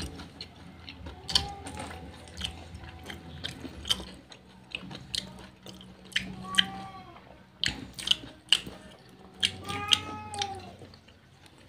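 Close-up crunching of crispy fried chicken being bitten and chewed, with sharp crunches about once a second. An animal gives a few high, rising-and-falling calls, the longest about ten seconds in.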